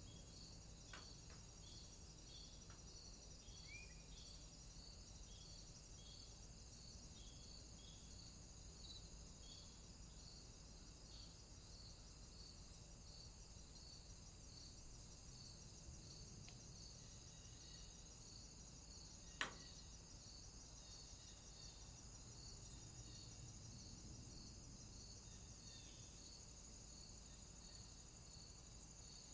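Quiet outdoor afternoon ambience of insects chirping: a continuous high trill and an evenly pulsing high chirp, a little under two a second, over a low steady hum. A single sharp click stands out about nineteen seconds in.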